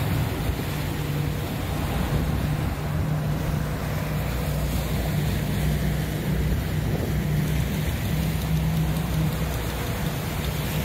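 Twin Mercury Verado outboard motors running steadily at cruising speed, a constant low drone under the rush of the churning wake water.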